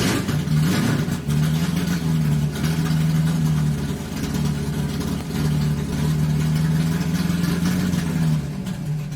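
A motor vehicle engine running loud and steady, cutting in abruptly.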